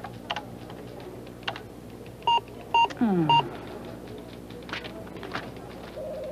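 Scattered clicks of keys being pressed on a desktop PC keyboard, then three short electronic computer beeps about half a second apart, a little over two seconds in. The last beep overlaps a falling electronic tone, and a low steady hum runs underneath. The beeps are the kind a PC gives when it rejects input.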